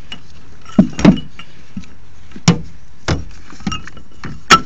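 Gear being handled in a storage compartment of an aluminium jon boat: a series of about six sharp knocks and clunks, the loudest pair about a second in and another near the end.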